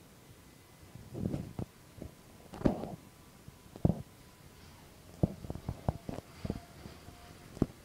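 Handling noise from a handheld phone: irregular knocks and rubbing on the microphone over a faint background hum inside a subway car.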